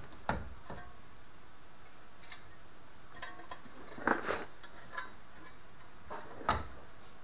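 A handful of short, irregular metallic knocks and clicks from a CV axle and steering knuckle being worked by hand, loudest in a quick double knock a little past halfway and a single knock near the end.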